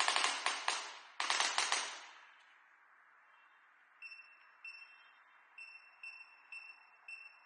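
Digital electric chiropractic adjustment gun firing a rapid run of sharp clicking impulses for about two seconds, then six short electronic beeps about half a second apart from its digital controls.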